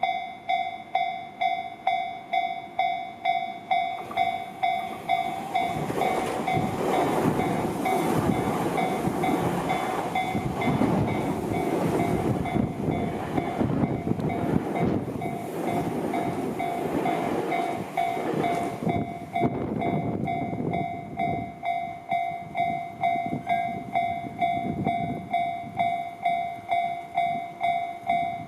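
Japanese level-crossing warning bell ringing, a repeating electronic clang about one and a half times a second. From about 5 s to 19 s a Tobu Tojo Line train passes over the crossing, its wheels and rumble swelling over the bell and then fading.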